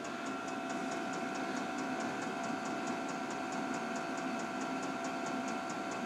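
Vevor 8 kW diesel air heater running hot at high output. Its blower fan runs with a steady whine, and a regular ticking comes at about five ticks a second, the pace of the fuel pump metering diesel at full output.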